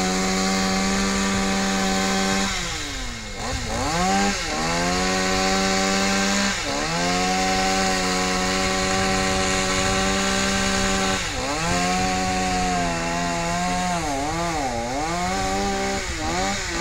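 Chainsaw running at high revs while cutting through a tree limb. Its pitch dips and recovers several times as the chain bogs down in the wood.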